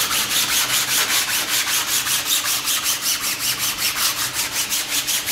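Hand-sanding a fiberglass boat hull with coarse 60-grit sandpaper on a sanding block. It makes a rapid back-and-forth rasping, about five or six strokes a second, keying the cured laminate ahead of bonding.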